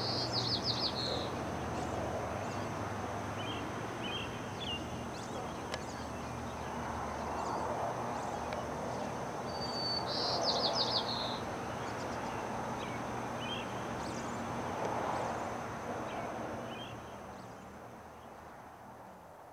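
A songbird singing a short phrase, a high steady whistle followed by a quick trill, twice about ten seconds apart, with soft chirps in between. Under it runs a steady outdoor rush with a low hum. The sound fades down near the end.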